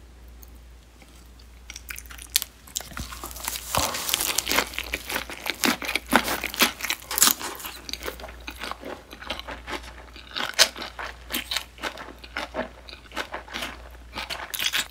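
Close-miked chewing of a big mouthful of lettuce wrap with raw butterfish sashimi: crisp lettuce leaves crunching in rapid, irregular crunches that begin about two seconds in.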